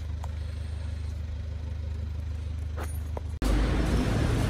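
A minivan engine idling with a steady low hum. About three and a half seconds in it cuts off abruptly to louder, even background noise in an indoor car park.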